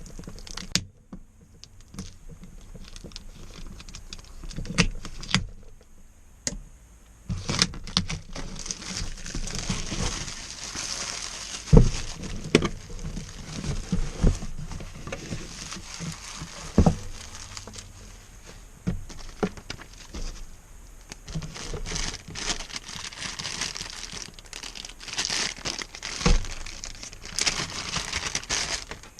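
Hands handling computer hardware and its packaging: rustling and crinkling with scattered sharp clicks and a few louder knocks. It is sparse with a few clicks at first, and the rustling starts a few seconds in.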